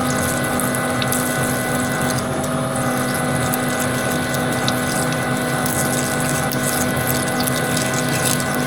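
Metal lathe running steadily under power, its motor and gearing giving a steady whine of several fixed tones over an even hiss.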